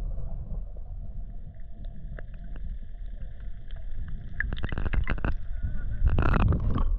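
Pond water sloshing and splashing close around the microphone, a muffled low rumble with a run of sharper splashes about four and a half seconds in and another just after six seconds.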